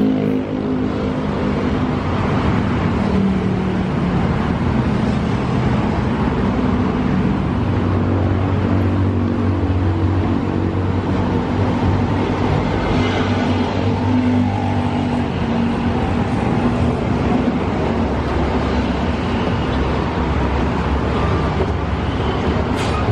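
Diesel engine of a parked Mercedes-Benz coach idling steadily, with road traffic passing.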